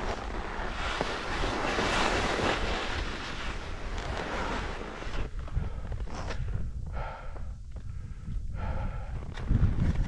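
Wind buffeting the action camera's microphone: a low, uneven rumble under a broad rushing hiss that swells a second or two in and then comes and goes.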